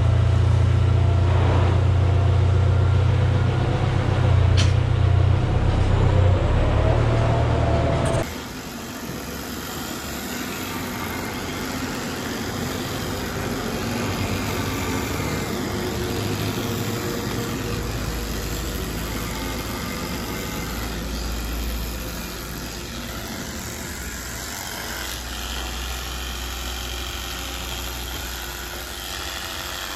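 Tractor engine idling with a steady low hum. About 8 seconds in it cuts off suddenly, giving way to a quieter, even noise.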